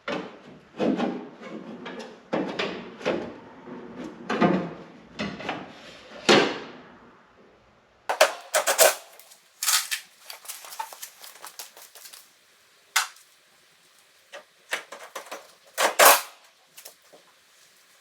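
Sheet-metal car body panels being handled and fitted together: a run of separate metallic knocks and clicks. They come as a dense clatter in the first few seconds, then as sharper, well-spaced knocks after a pause, the loudest near the end.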